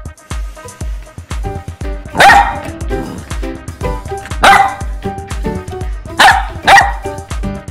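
Golden retriever puppy barking: four sharp barks, two spaced about two seconds apart and then two in quick succession near the end. Background music with a steady beat plays under the barks.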